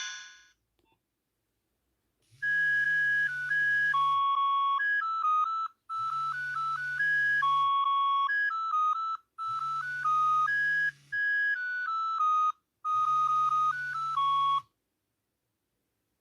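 Nokia 6101 flip phone ringtone: a synthesized melody in four short phrases of stepping notes over a low held note, starting about two seconds in after the tail of the previous tone fades out.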